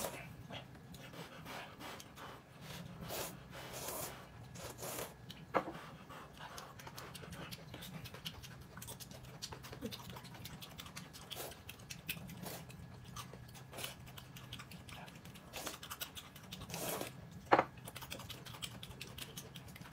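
Close-up eating sounds: chewing and small mouth noises with scattered soft clicks, and two sharper clicks, one about five and a half seconds in and one near the end.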